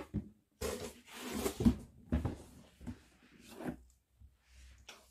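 Cardboard boxes handled by hand: a rigid gift box slid out of its shipping carton and its lid lifted off, giving a run of short scraping and rubbing noises with a few light knocks.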